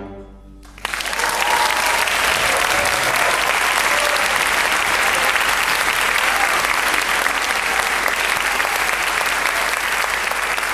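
The orchestra's final chord dies away, then audience applause breaks out about a second in and continues steadily.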